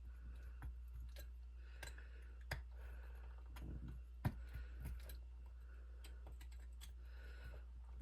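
Small, scattered clicks and taps of a hex driver and RC wheel parts being handled while trying to back out stripped screws, with one sharp click about four seconds in, over a steady low hum.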